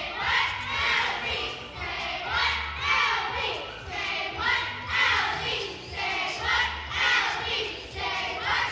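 A group of young girls chanting a cheer in unison, shouted words rising and falling in a steady rhythm about once a second.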